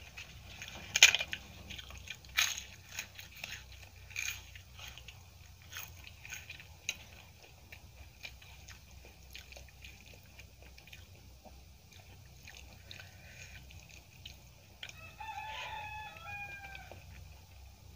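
Crisp papad crunching in a few sharp cracks over the first four seconds, then quieter crackles. About fifteen seconds in, a rooster crows once.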